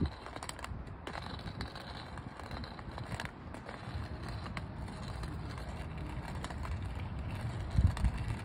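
White cane's ball tip rolling and clicking over brick pavers and then stone slabs as it is swept from side to side, with footsteps. A couple of louder knocks come near the end.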